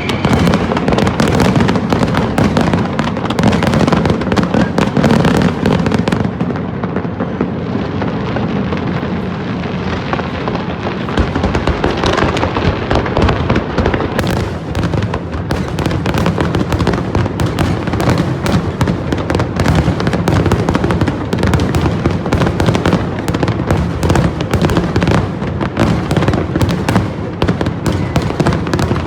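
New Year fireworks display: a continuous barrage of bangs and crackles as shells burst in quick succession, without a pause.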